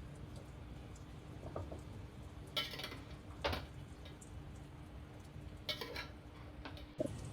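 Kitchenware being handled: four short, sharp clinks and knocks over a low, steady hum.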